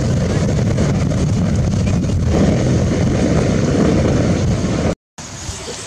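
Loud, steady rumble of wind buffeting the microphone. It cuts off suddenly near the end, leaving a short, quieter stretch.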